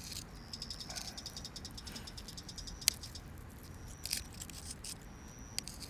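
Insects chirping outdoors in repeated short, rapid high-pitched trills, with a few sharp clicks over faint background noise.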